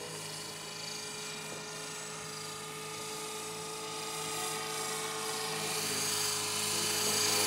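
Radio-controlled model helicopter in flight: a steady whine of motor and rotors, several tones held level, getting louder over the last two seconds as it comes closer.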